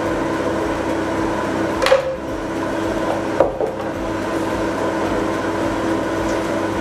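Steady background hum with two short knocks about a second and a half apart, as the spoon and glass jar of pesto are put down.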